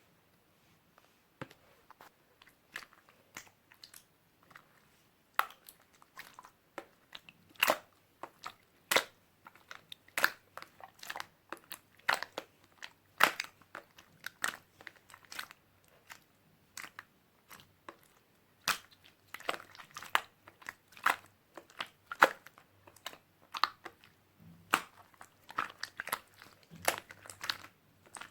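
White slime, with its air bubbles worked out, being squeezed and pressed by hand, giving irregular sharp clicks and pops. The clicks are sparse at first and come thick and fast from about seven seconds in.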